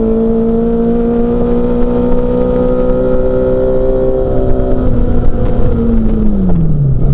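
Mini Cooper S racing car's four-cylinder engine running hard at high revs, its pitch creeping slowly upward as it pulls through one gear. About five seconds in, the revs drop and then fall away steeply as the throttle is lifted, before a sharp rise right at the end.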